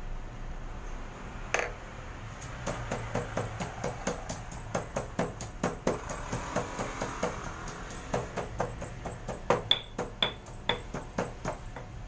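Stone pestle pounding garlic in a granite mortar: a run of dull thuds at about three a second starting a second and a half in, with a few sharp ringing clinks near the end.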